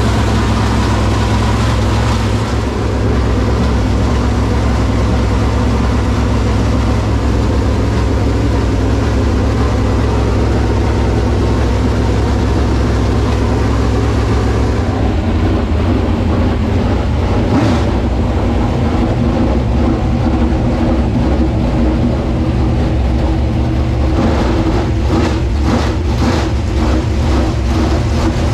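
Chevrolet SB2 small-block V8 race engine in a Super Late Model dirt car running loud and steady at idle, started so its ignition timing can be set. A run of quick sharp pulses comes in the last few seconds.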